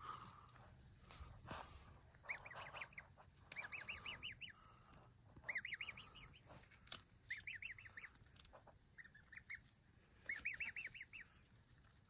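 A young gosling peeping: quick runs of five or six high chirps, repeated several times, with a few faint clicks in between.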